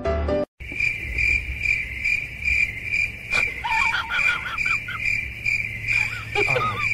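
A cricket chirping steadily, about two chirps a second, with short high wavering whines from a dog a little past halfway and again near the end.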